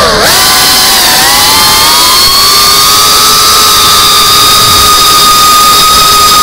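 FPV drone's brushless motors and propellers whining, heard through the onboard camera. The pitch drops steeply as the throttle is cut at the start, dips again about a second in, then rises and holds a steady high whine as the drone climbs.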